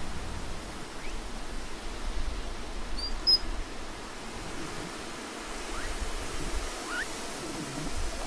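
Steady hiss and low rumble of an outdoor recording, with a short high chirp about three seconds in and a few faint rising squeaks in the second half.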